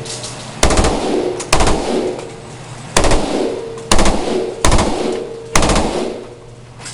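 M16 rifle firing on full auto in six short bursts of a few rounds each, spaced roughly a second apart. Each burst rings and echoes off the range walls.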